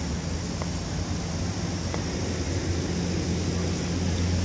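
A steady low mechanical drone with a hum underneath grows gradually louder. Two faint clicks come from a metal spoon against a plastic food container, about half a second and two seconds in.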